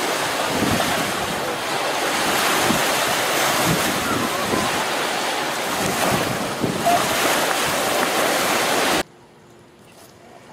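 Wind buffeting the microphone over choppy open water, a loud steady rush that cuts off abruptly about nine seconds in to a quiet background.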